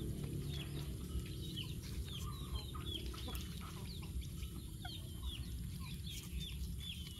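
Chicks peeping in a string of short, high, falling chirps, several a second, over a steady low rumble.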